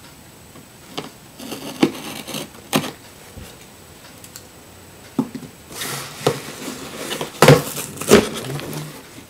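Camcorder packaging being handled and opened: rustling and crinkling with several sharp clicks and knocks, busiest and loudest in the last three seconds.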